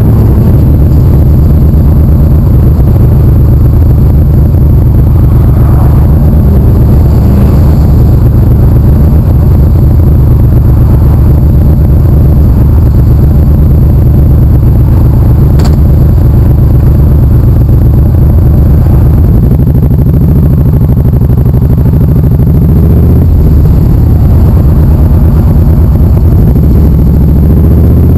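Motorcycle engine idling with a steady low rumble while stopped, picked up by a camera mounted on the bike; near the end the engine note rises as the motorcycle pulls away. A single sharp click is heard about halfway through.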